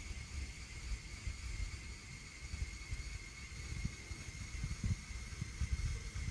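Wind buffeting the microphone in uneven low gusts, over a steady, thin high-pitched whine and hiss.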